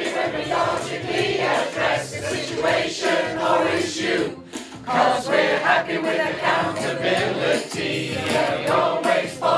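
A group of voices singing together in chorus over backing music.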